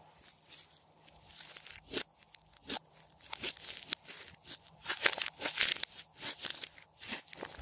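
Hands squeezing and kneading thick glossy slime mixed with floam beads: irregular crackles, clicks and sharp pops, sparse at first and coming thick and fast from about three seconds in.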